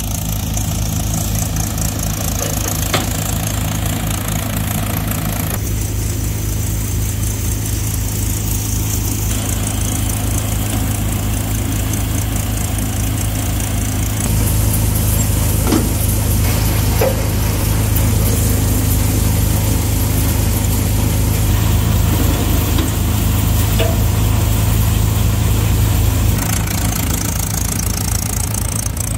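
Mahindra 475 DI tractor's diesel engine running steadily, driving a multicrop thresher as it threshes groundnut plants. A few brief clicks sound over the hum.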